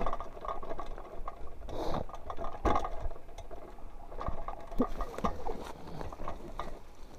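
Mountain bike rolling along a rough dirt singletrack: tyres on the dirt, with irregular clicks and rattles from the bike as it bumps over the ground.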